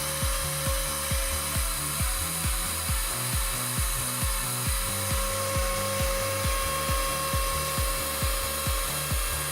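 Woodworking machine cutting wood: a steady high hiss and whine, under background music with a steady beat of about three pulses a second.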